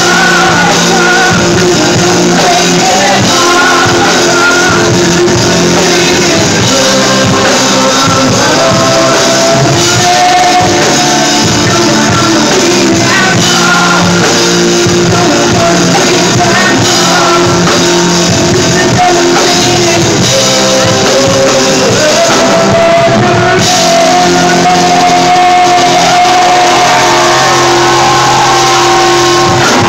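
Live rock band playing through a club PA: singing over electric guitar, drums and keyboards, loud and steady throughout.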